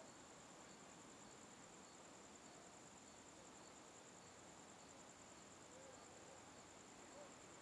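Near silence with the faint, steady, high-pitched trill of crickets chirping without a break. There are a few faint ticks and chirps. The approaching jet cannot be heard yet.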